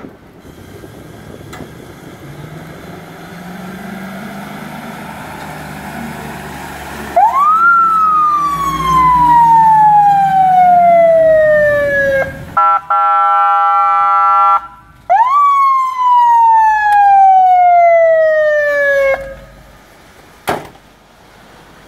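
1993 Ford F700 fire truck's engine running as it drives up, then its siren sounds: two loud wails, each rising quickly and falling slowly, with a steady blaring horn tone between them. A single sharp knock near the end.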